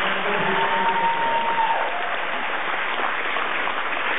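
Audience applauding. About half a second in, one long high held note rises above the clapping for about a second and then drops off.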